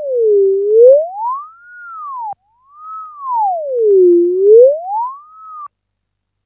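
Sylenth1 software synth playing a pitch-bend effect: one pure tone swooping slowly down and back up, like a siren. It breaks off about two and a half seconds in, restarts with the same slow dip and rise, and cuts off suddenly near the end.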